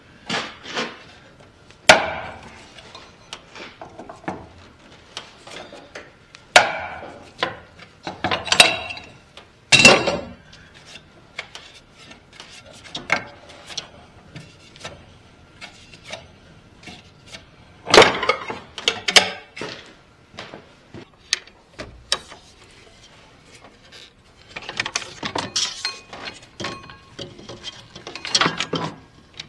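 Scattered sharp knocks and clanks of hand tools and engine parts being handled and set down, with a denser run of small rattling clatter near the end.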